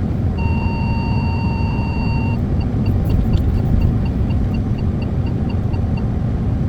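Excavator engine running with a steady low rumble, with an electronic beeper over it. The beeper holds one steady tone for about two seconds, then turns into short, even beeps about four a second.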